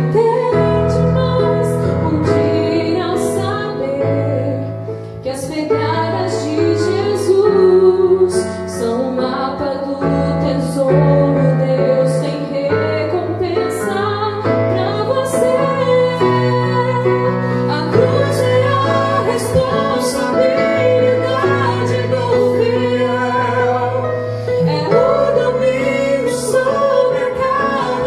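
A woman singing a slow Brazilian gospel song over a Casio electronic keyboard playing piano-like chords with sustained bass notes.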